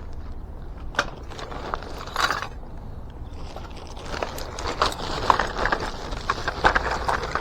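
Hand tools clinking and rattling while someone rummages through a tool bag packed with tools in plastic bags: scattered metallic clicks and clatters, thicker in the second half.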